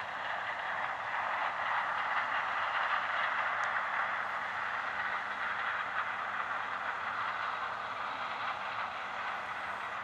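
Combine harvester and the tractor pulling a grain cart running together while harvesting corn and unloading on the go. It sounds like a steady rushing machine noise with little low rumble, swelling slightly a couple of seconds in.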